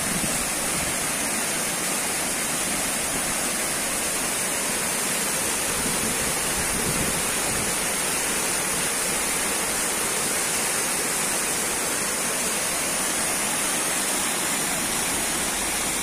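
Waterfall pouring over a rock ledge, a steady loud rush of falling water.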